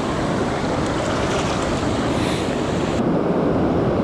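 Ocean surf washing at the shoreline, a steady rush of water with wind buffeting the microphone; the higher hiss cuts off abruptly about three seconds in.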